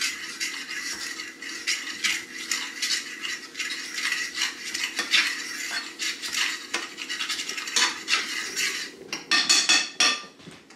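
A fork stirring and scraping in a metal skillet of melted seasoned butter: a quick, busy run of clinks and scrapes against the pan, with a few sharper knocks near the end.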